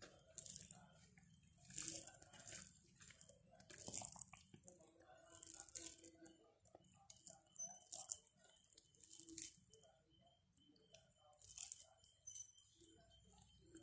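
Faint eating sounds: rice and curry being mixed and squeezed by hand on a plate, with soft crunchy chewing, in irregular bursts every second or two.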